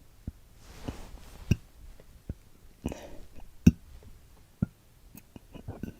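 A woman deliberately forcing up a series of short burps, two of them louder, with breathy inhales between them: swallowed-air burping done to bring on hiccups.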